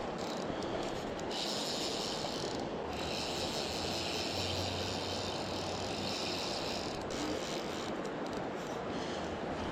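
Steady rushing of a trout stream's flowing water, with a brighter hiss layered on top from about a second in until about seven seconds in.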